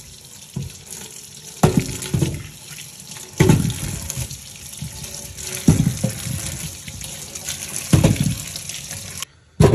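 Kitchen tap running steadily into a sink, with about four dull knocks of things being handled in the basin. The water cuts off suddenly near the end.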